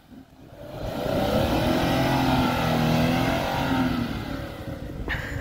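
Off-road vehicle's engine revving under load as it climbs a rock obstacle: it builds over the first second or so, holds through the middle, and eases off after about four seconds.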